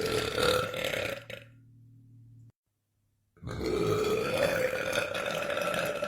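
A man's long belches: one trails off about a second in, and after a short gap a second long, steady belch starts just past the middle.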